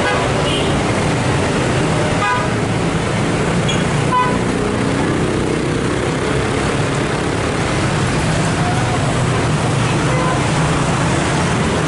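Busy city road traffic: motorcycle and car engines running and passing steadily, with a couple of short horn toots a few seconds in.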